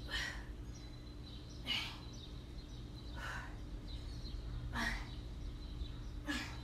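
A woman's sharp exhales, one with each push-up, about every second and a half, over a steady low hum.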